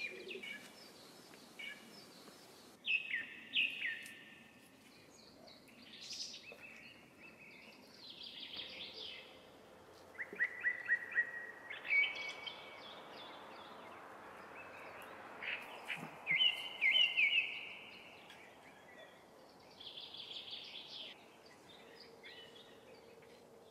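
Small songbirds singing, with short phrases of quick chirps, many falling in pitch, repeated every few seconds.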